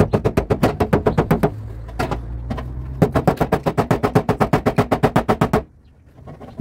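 Small plastic-tipped PDR hammer tapping rapidly on a car door panel, about seven light taps a second, to work out a dent. The tapping pauses from about a second and a half to three seconds in, picks up again, and stops about a second before the end.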